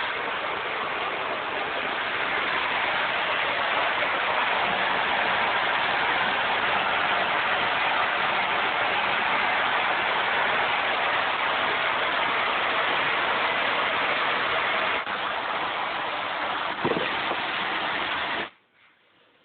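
Hair dryer running at a steady rush, then switched off about 18.5 seconds in.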